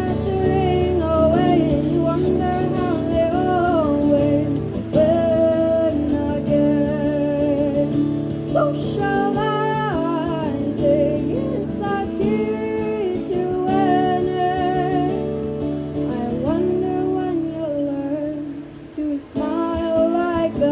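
A woman singing a gentle song to acoustic guitar, with a brief pause in the playing near the end.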